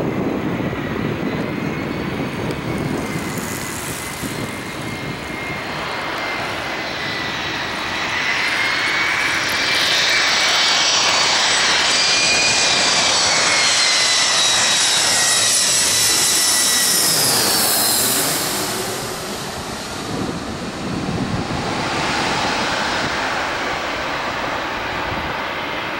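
Boeing 737 jet engines at takeoff power: steady jet noise with high whining tones that builds to its loudest about ten seconds in, then drops in level with the whine sliding down in pitch around eighteen seconds as the airliner moves away.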